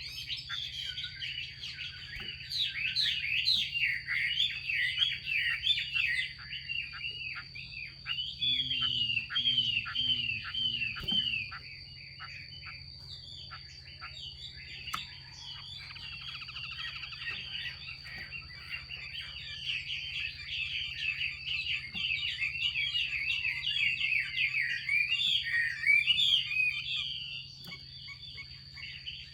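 Female Chinese hwamei (melodious laughingthrush) giving its rapid chattering 'xùy' call, runs of quick sweeping notes in three long stretches with short breaks between. Keepers use this call to stir male hwamei into singing.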